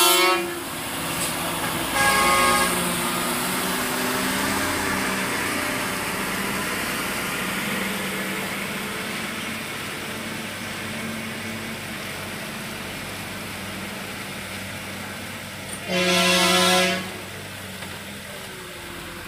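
A vehicle horn sounds briefly at the start and again about two seconds in, then gives a louder blast lasting about a second near the end. A vehicle engine runs steadily throughout.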